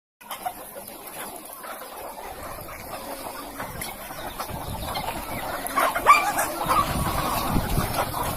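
A flock of broiler chickens clucking, many short overlapping calls that grow busier and louder about halfway through.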